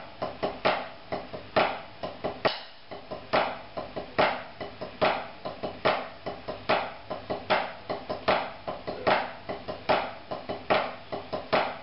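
Drumsticks on a rubber practice pad, playing one short snare figure over and over: two sixteenth notes and then an accented flammed eighth. Each repeat brings a loud accent, a little under one a second, with softer strokes between.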